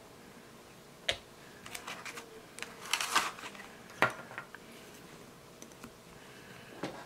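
Nail-stamping tools being handled on a tabletop: a sharp click about a second in, a short scraping rustle around three seconds, another sharp click about four seconds in, and light rustling near the end.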